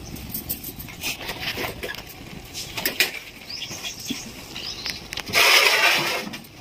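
Light scattered clicks and rustles of fresh coriander, mint leaves and fried onions being dropped by hand onto rice in a large aluminium pot, with a louder burst of rustling noise lasting about a second near the end.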